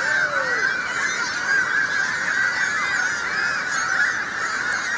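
A gull colony calling: many birds squawking over one another in a dense, steady chorus, with one nearer, lower call falling in pitch just after the start.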